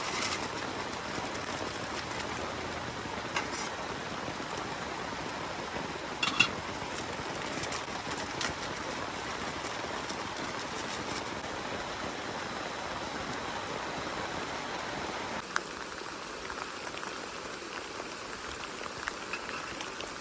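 Heavy rain falling steadily, with a few sharp knocks or taps; the loudest comes about six seconds in.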